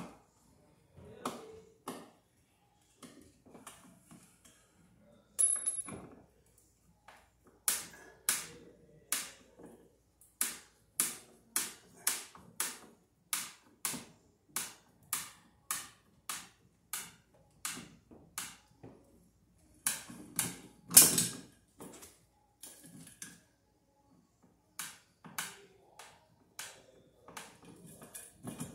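Screwdriver working the screws of a metal ceiling junction box to take it down: a steady series of sharp metallic clicks, about two a second, with one louder knock about two thirds of the way through.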